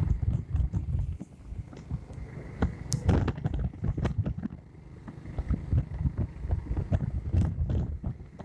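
Wind buffeting the phone's microphone in a moving car, a gusty low rumble with frequent short crackles over the road noise.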